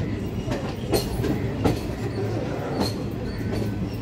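Ratnachal Express coach wheels running on the track, heard from on board the moving train: a steady rumble with a few sharp, unevenly spaced clicks as the wheels pass over rail joints.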